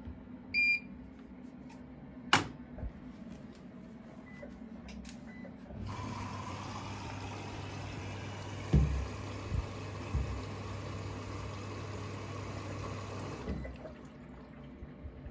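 Siemens washing machine starting a wash: a short electronic beep, a click, then the water inlet valve opens with a steady hum and water rushes into the drum for about eight seconds, with a few dull thumps, before the inflow stops.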